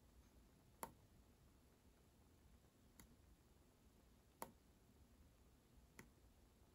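Four faint, sharp clicks a second or two apart: a small tactile push button on a breadboard being pressed to trigger the one-shot timer circuit.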